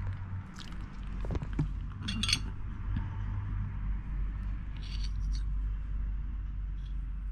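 A metal fork clinking and scraping against a ceramic plate as it cuts a piece off a roll cake, with two short clinks about two and five seconds in, over a low steady hum.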